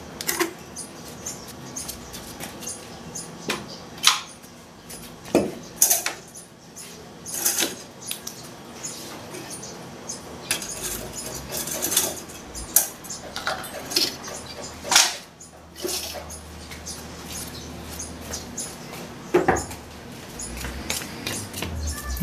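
Irregular knocks, clinks and scrapes of concrete hollow blocks and loose debris being moved and set down by hand on a concrete floor, with a couple of heavier thuds.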